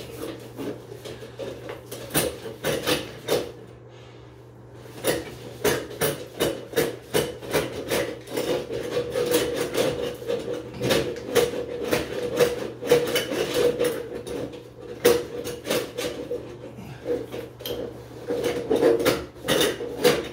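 Handheld drum auger at work in a tub's overflow and drain pipe: the steel snake cable rattling, scraping and knocking irregularly as it is turned and fed, trying to find its way past the bend into the drain. The clatter eases briefly about four seconds in, then goes on busily.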